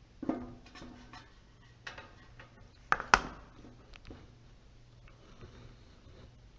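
Clicks and clatters of toaster oven parts being handled and worked loose during disassembly, with two sharp knocks about three seconds in, the loudest of them.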